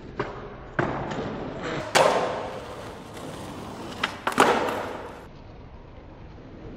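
Skateboard boardslide on a concrete ledge: a sharp pop, the deck slapping onto the ledge and scraping along it for about a second, then a loud landing as the wheels hit the ground and roll away. About four seconds in, another quick run of sharp board hits follows, with scraping and rolling that stops about a second later.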